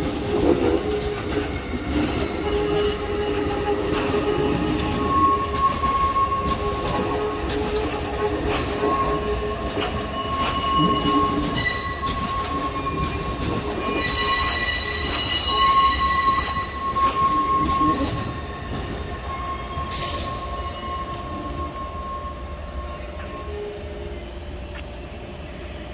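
Taipei Metro train's steel wheels squealing as it rounds the curving depot tracks at low speed, over the rumble of the cars: a long squeal made of several steady high tones. It fades after about 18 seconds.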